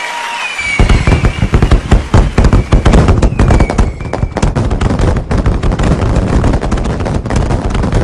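Fireworks: a whistling rocket falls in pitch, then from about a second in a dense, rapid crackle of bangs and pops runs on, with another falling whistle a little past three seconds.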